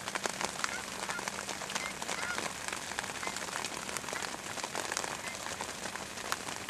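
Light rain pattering close to the microphone: a steady hiss with irregular light ticks. Faint short calls of distant geese come through now and then.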